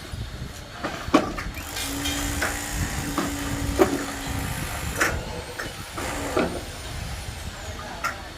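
Construction-site machinery: a low engine rumble with a hiss and a steady hum for a couple of seconds, broken by several sharp knocks.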